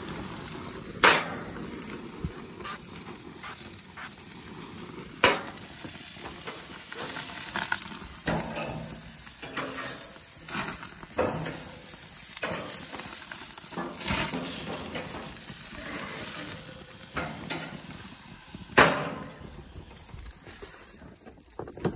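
Pork chops sizzling on a hot grill grate, with several sharp clacks of metal tongs against the grates as the chops are turned. Four of the clacks stand out loud, the first about a second in.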